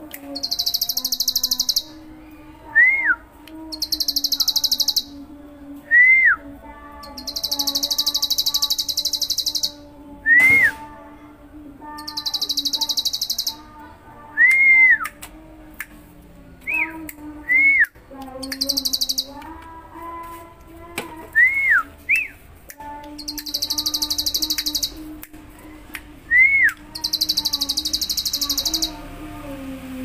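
Caged ciblek (bar-winged prinia) in full song: very high, rattling trills of one to two seconds, repeated every few seconds, with short whistled notes that rise and fall between them.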